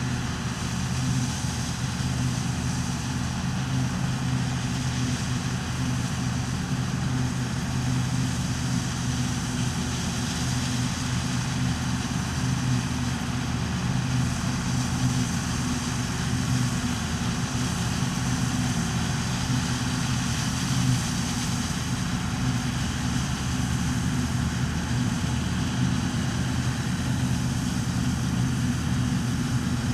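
New Holland Clayson 8060 combine harvester running steadily with a low, even engine note and mechanical hum that holds constant throughout.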